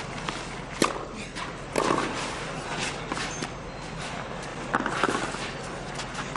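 Tennis ball being struck by rackets during a rally on a clay court: sharp hits roughly a second apart over a steady background of crowd and court ambience.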